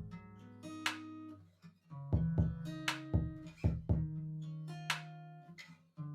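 Background music without vocals: plucked guitar-like notes over deep bass and repeated drum hits.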